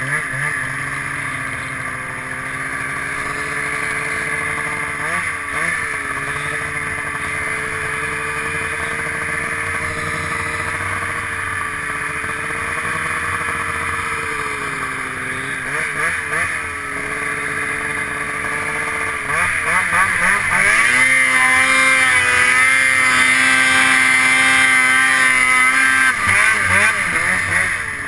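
Snowmobile engine running under way through deep powder, heard from on the sled: a steady engine note that dips briefly a few times, then throttled up and louder for several seconds about two-thirds of the way through before easing off near the end.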